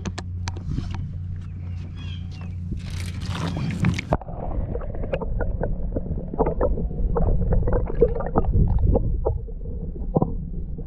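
Water splashing as a camera is plunged into a lake, then muffled underwater sloshing and gurgling with irregular knocks, heard through the submerged microphone.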